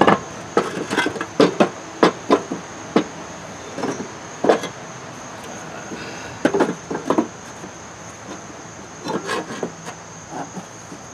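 Irregular wooden knocks and clatter, in several short clusters, as blocks of wood and a mower blade are shifted and knocked against the steel underside of a mower deck.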